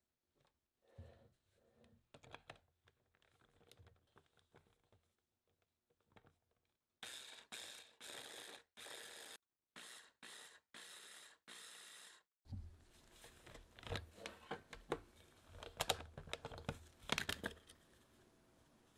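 Hand blender chopper attachment run in about nine short pulses, starting about seven seconds in, cutting cold butter into flour and sugar for crumble. Soft plastic clicks of handling come before, and knocks and clatter of the plastic motor unit and lid being lifted off come after.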